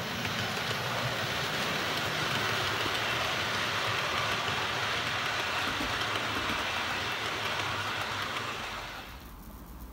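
OO gauge model train, a Class 40 locomotive hauling close-coupled coaches, running past along the track: a steady whirring rattle of the motor and small wheels on the rails, dying down about nine seconds in as it moves away.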